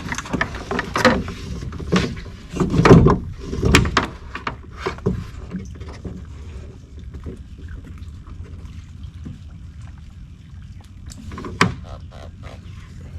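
Knocks and splashes from a small rowboat and its gear on the water, a busy cluster in the first few seconds, then quieter, with one sharp knock near the end.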